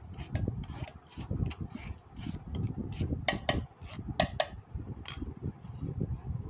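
A steel ladle scraping and knocking against a stainless-steel mesh strainer and steel bowls as soft cooked mango pulp is scooped out, a quick run of clicks and scrapes with a few sharper ringing metal clinks in the middle.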